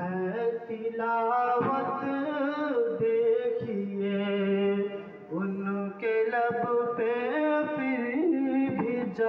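Background music: a man singing a slow devotional song, a naat, holding long, wavering notes with short breaks between phrases.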